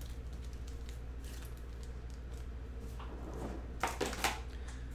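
Light handling of a trading card in a clear plastic sleeve, with soft crinkles and small clicks over a steady low hum, and a couple of louder rustling knocks about four seconds in.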